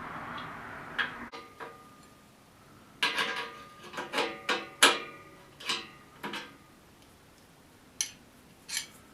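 Steel bolts, nuts and hand tools clinking and tapping against metal lathe parts while the bolts are being fitted. The sharp clicks ring briefly and come irregularly, with a quick cluster in the middle. A steady background noise stops about a second in.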